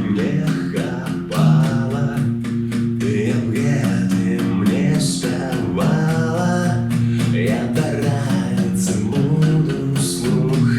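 Rock song played by a band: sung lead vocal over strummed guitar and bass, with a steady drum beat.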